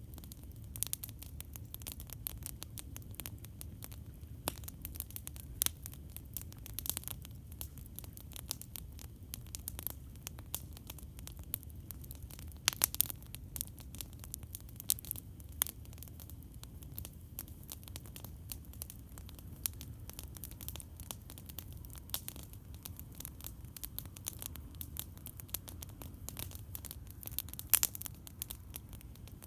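Campfire crackling: frequent sharp snaps and pops, a few louder than the rest, over a steady low rumble.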